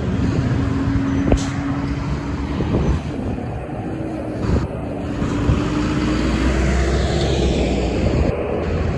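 Diesel semi-truck traffic going by: steady engine and tyre noise with a faint even hum, a single sharp knock about a second and a half in, and a deeper engine sound building near the end as a heavy tractor-trailer pulls through.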